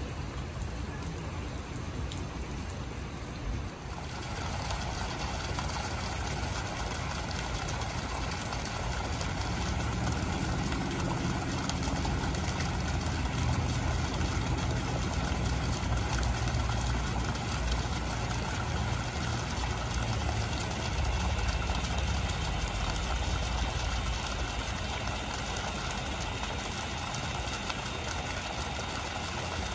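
Garden fountain jets splashing into a pool: a steady rush of falling water that starts about four seconds in, with a low rumble underneath.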